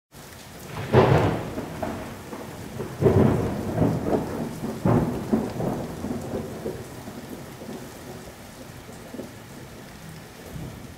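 Thunderstorm: thunder rumbles in three loud swells about two seconds apart, then rolls away and fades, over steady rain.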